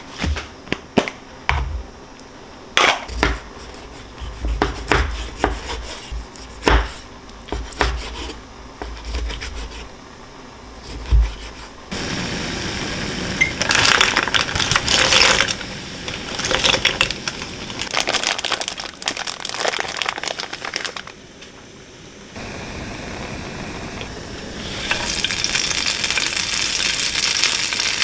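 Kitchen cooking sounds: for about twelve seconds, a scattered series of sharp knocks and clicks from utensils and cookware, then a steady hiss with swells. Near the end it turns into food sizzling in a pan, growing louder.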